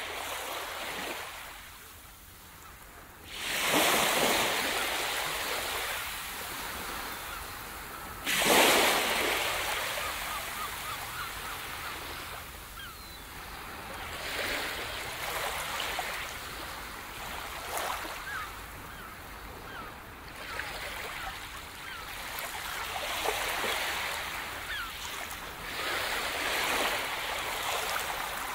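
Ocean surf washing onto a beach: small waves break and draw back every few seconds, with two louder breakers about three and a half and eight seconds in.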